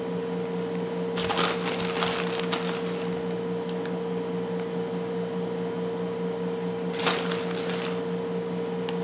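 Plastic bag of shredded cheese rustling and crinkling as the cheese is shaken out by hand and sprinkled on, in two spells: about a second in and again about seven seconds in, over a steady low hum.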